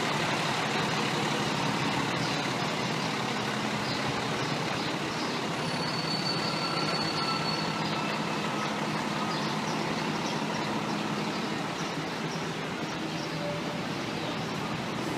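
Fire engine's diesel engine idling steadily among street noise, easing slightly near the end.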